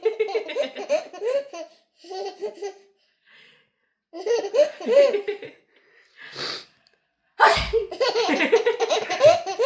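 Baby giggling and belly-laughing in several bursts. A sneeze comes about six to seven seconds in, followed by a louder run of laughter.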